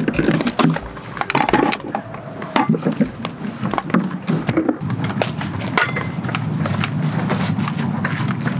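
Rummaging in a hard-sided cooler: plastic packaging rustling and bottles and cups knocking against each other and the cooler walls, with a knock as the lid is shut about four seconds in. After that a steady low hum with small clicks.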